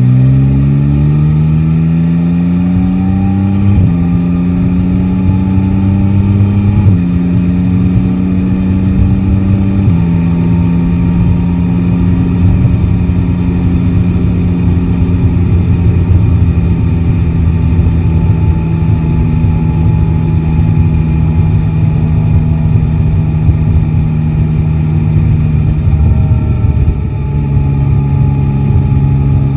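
Yamaha Tracer 9 GT's three-cylinder engine accelerating through the gears: its pitch rises and drops sharply at upshifts about 4 and 7 seconds in, then climbs once more. From about 10 seconds it holds a steady cruising note over wind and road rumble, eases off briefly near the end, and settles at a slightly lower pitch.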